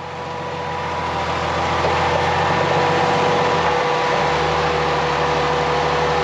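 Off-road vehicle engine idling steadily, growing louder over the first two seconds, with a thin steady whine above it. About four seconds in the engine note dips and settles at a different pitch, as a tube-chassis rock crawler's engine idles.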